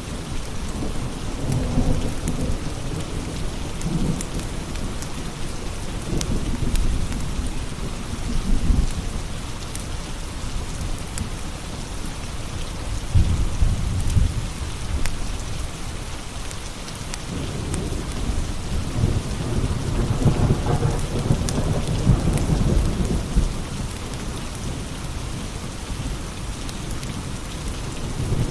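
Steady rain with low thunder rumbling in several long swells, and a wood fire crackling in small sharp ticks.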